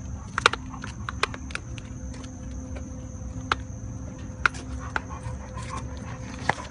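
Close handling noise as a puppy's fur brushes against the phone: irregular sharp clicks and rustles, over a steady high-pitched hum.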